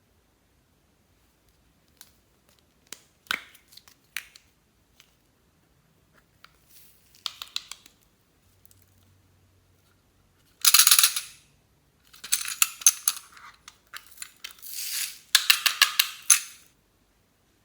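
Glossy slime being mixed, giving scattered sticky clicks and then several bursts of crackly popping, the loudest about eleven seconds in.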